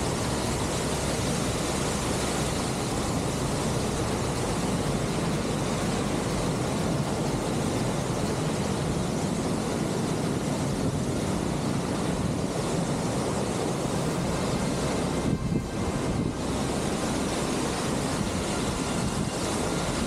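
Waterfall, Shoji Falls, pouring in a steady, unbroken rushing noise, its flow high from swollen streams.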